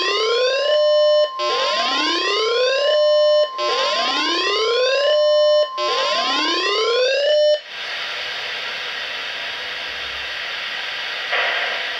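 NOAA Weather Radio's steady 1050 Hz warning alarm tone received on a Uniden BCD325P2 scanner, overlaid by the scanner's own weather-alert siren: four rising wails, each climbing and holding for about two seconds. Both stop a little over halfway through, leaving steady radio hiss.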